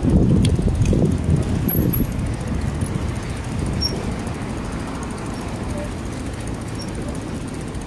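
Wind noise on the microphone of a moving bicycle, with low tyre noise over the pavement. It is loudest for the first couple of seconds, then settles to a steadier, slightly quieter noise.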